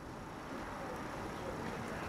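Faint, steady outdoor background noise with no distinct sound events.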